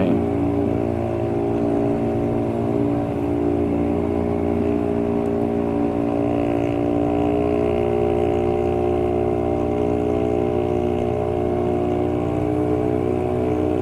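A motorcycle engine and exhaust running at steady revs, a loud, even drone that the riders call not a nice noise and a badly built noise.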